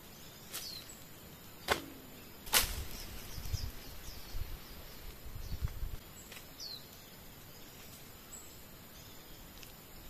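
Slingshot being fired: sharp snaps, the loudest about two and a half seconds in, followed by a few seconds of low rumbling noise. A small bird gives a short descending call a couple of times.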